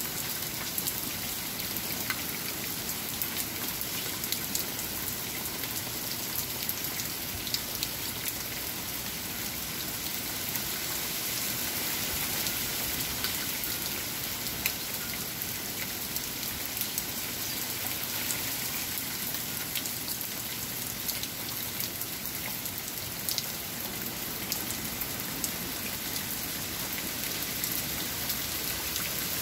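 Heavy hurricane rain pouring down steadily, with a constant hiss and many individual drops spattering sharply on nearby surfaces.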